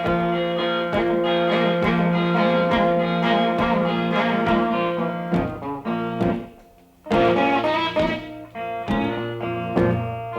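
Blues guitar music: plucked guitar notes over held chords. It drops away briefly about six seconds in, then the guitar comes back in.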